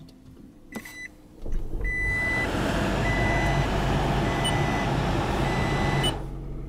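2009 Toyota Prius hybrid being started from cold: a few clicks, then about a second and a half in its petrol engine comes on and runs with a steady hum. A high in-car warning beep sounds on and off meanwhile. About six seconds in the sound drops to a quieter, steadier hum.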